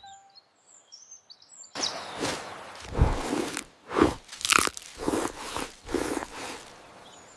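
Crunchy chewing and munching sound effect, a quick run of bites several a second, starting about two seconds in. Before it, faint high bird chirps.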